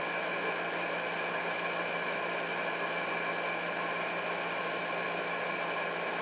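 A steady machine hum with a few fixed tones and a faint hiss, unchanging throughout.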